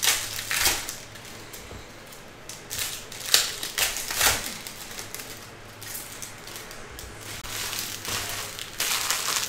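Foil trading-card pack wrappers crinkling and rustling as they are handled, in irregular bursts, with the bunched near the start, in the middle and near the end.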